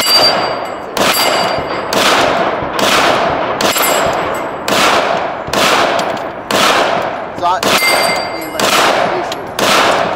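Rifle shots fired at a steady pace, about one a second, each followed by a rolling echo off the range.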